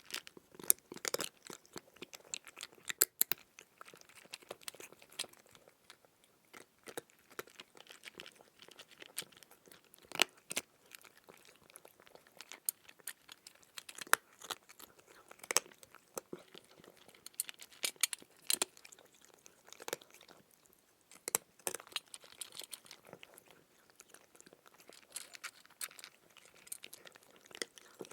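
Crunchy food being chewed and bitten close to the microphone: irregular crisp crunches and crackles, with louder single bites now and then.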